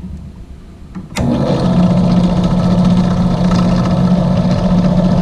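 An electric drill switches on about a second in and then runs steadily with a loud hum, boring a rivet hole through a fiberglass rocket body tube.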